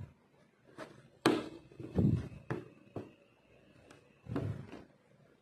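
Aari hook needle being pushed through and drawn back out of taut embroidery cloth while sequins are stitched down. Irregular sharp ticks, with a couple of dull thumps from the stretched fabric.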